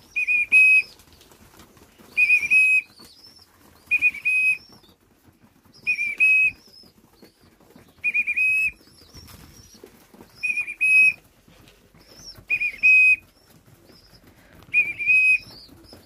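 A whistle blown in short, loud, two-part toots about every two seconds as young racing pigeons feed. The fancier keeps whistling until the food is gone, conditioning the birds to link the whistle with food.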